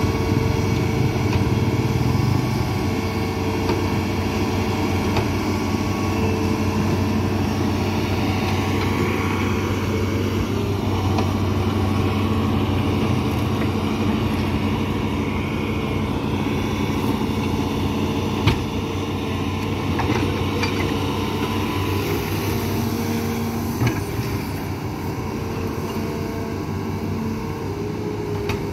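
Hitachi amphibious excavator's diesel engine running steadily as the machine crawls on its pontoon tracks, with two sharp knocks, one about two-thirds of the way in and one a few seconds later.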